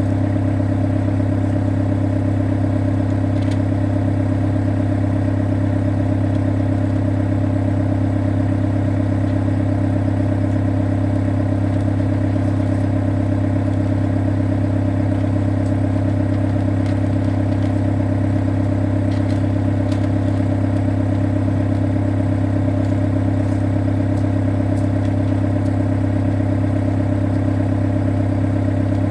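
Excavator's diesel engine running at a constant speed, a steady drone with no revving or change in pitch.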